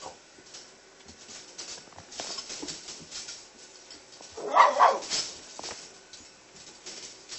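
American red nose pit bull terrier puppies scuffling in a pen, with scattered light clicks and scratches. One short, loud puppy bark comes about halfway through.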